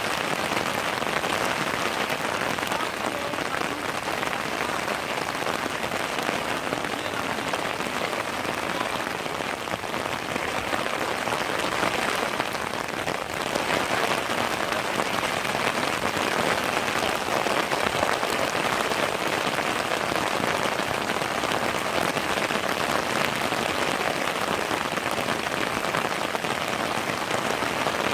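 Heavy rain pouring down, a steady dense hiss of many fine drops.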